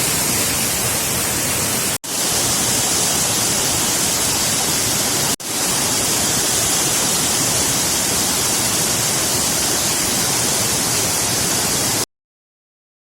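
Waterfall rushing: a steady, loud wash of falling water, broken twice by a brief gap and cutting off suddenly near the end.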